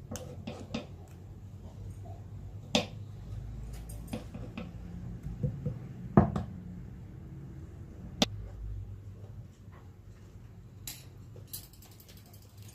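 Dishes and kitchen utensils clinking and knocking now and then, a handful of sharp knocks with the loudest about six seconds in, over a low steady hum.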